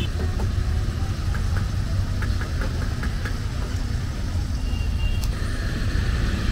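Low, steady rumble of an idling engine and road traffic, with a quick run of light ticks about one to three seconds in.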